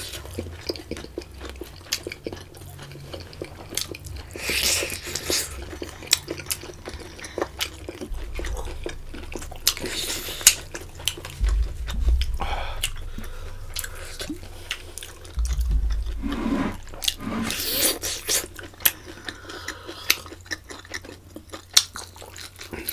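Close-up chewing and wet mouth clicks of people eating boiled octopus tentacles, with three louder wet bursts of about a second each and a few low thuds.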